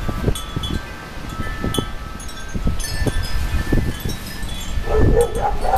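Wind chimes ringing irregularly in gusty storm wind, with many thin, high tones struck and hanging on, over low wind rumble buffeting the microphone. A brief wavering cry rises and falls near the end.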